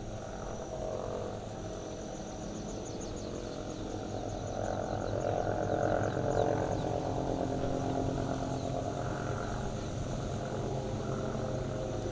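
Kilauea fissure vent erupting, flinging lava spatter, with a continuous rough low rumble of gas and spatter that swells somewhat in the middle.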